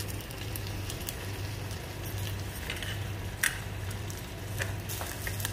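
Jaggery syrup simmering in a small steel pot on a miniature clay stove: a faint sizzle with scattered tiny crackles and one sharper click a little past halfway, over a steady low hum.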